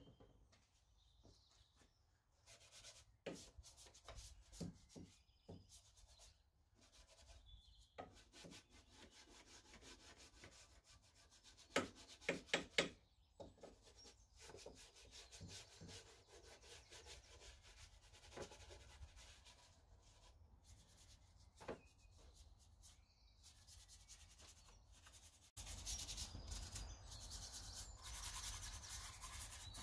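Faint brush scrubbing on engine bay plastics, agitating all-purpose cleaner in short scratchy strokes, with a quick cluster of sharp knocks about twelve seconds in. Near the end a steadier, louder hiss takes over.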